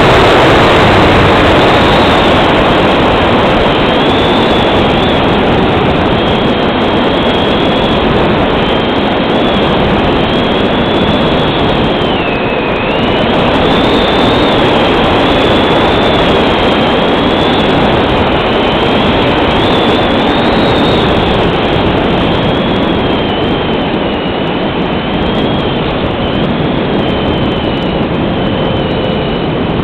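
A Multiplex Cularis RC plane's electric motor and propeller in flight, heard from the onboard camera under heavy wind rush. The high motor whine wavers up and down in pitch and dips briefly about twelve seconds in.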